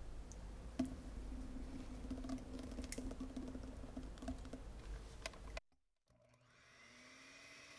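Small clicks of glassware as melted condensed milk is poured into cake batter in a glass mixing bowl. After an abrupt cut, an electric hand mixer's motor starts with a faint whine that rises in pitch near the end.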